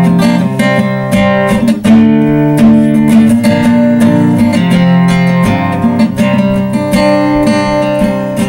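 Acoustic guitar strummed in a steady rhythm, playing chords as the instrumental intro of a country song.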